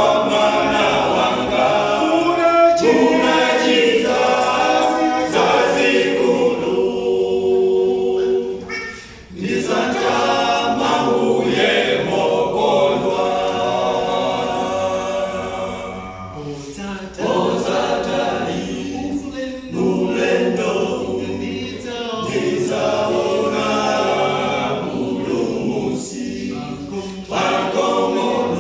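Male a cappella gospel group singing in harmony without instruments, in long phrases with short breaks between them, the clearest about nine seconds in.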